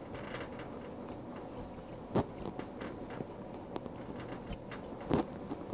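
Marker writing on a glass lightboard: faint scratchy strokes with small high squeaks, and a couple of sharper ticks about two seconds and about five seconds in.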